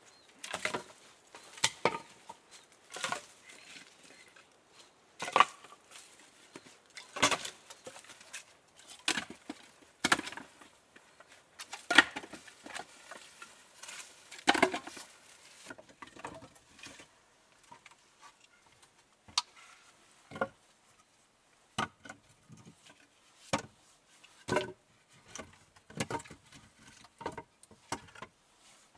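A person moving and working in dry leaf litter among stones: irregular crunches and knocks, about one every second or so, growing sparser and quieter in the second half.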